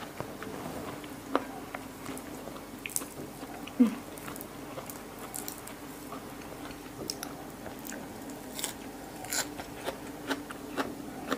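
Close-up eating sounds: a mouthful of raw beef liver and fresh herbs being chewed, with wet mouth clicks and scattered crisp crunches of leafy greens. Fingers pick and tear the herb leaves, and a faint steady hum runs underneath.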